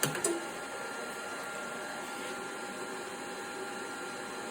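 Stick welder running steadily under load as a constant-current supply at about 87 amps: an even fan-like rush with a faint steady whine. A couple of short clicks right at the start.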